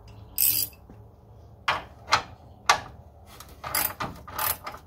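Hand tool clicking and knocking on the truck's front end, then a quicker run of ratchet-wrench clicks near the end as the fog light's mounting nut is loosened.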